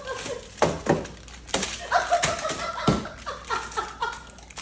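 A few sharp knocks and thuds of small objects being thrown down, one every half second or so at first and another about three seconds in, with bits of voice in between.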